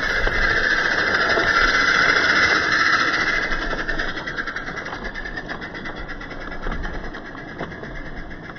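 Roundhouse Billy 16mm-scale live-steam locomotive working hard up a gradient with an eight-vehicle train, with rapid exhaust beats over a steady hiss, here played back slowed down. It is loudest as the engine passes in the first few seconds, then fades to the low rumble of the wagons rolling by on the track.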